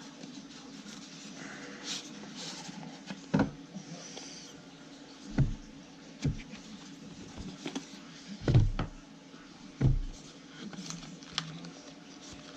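Handling and opening of a Samsung Galaxy S9+ retail box: scraping and rustling of the cardboard and packing, with a string of short knocks and thumps, the loudest about eight and a half and ten seconds in.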